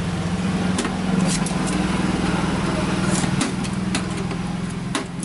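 Scattered sharp clicks and knocks of a flat-screen TV's metal chassis and plastic bezel being handled and pried apart, over a steady low motor hum.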